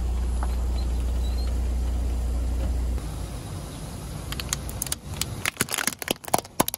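Car engine running with a steady low hum as the tyre rolls slowly over a toothpaste tube. In the second half a hard plastic toy ball is crushed under the tyre, cracking and snapping in a rapid run of sharp cracks that builds to the loudest ones near the end.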